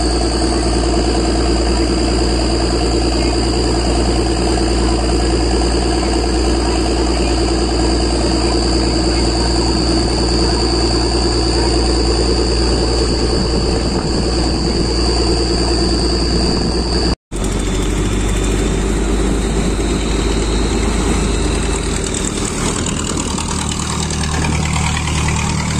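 Motorboat engine running steadily at speed, with a high steady whine over its hum. About two-thirds of the way through the sound cuts out for an instant. It comes back as a rougher engine note with rushing water and no whine.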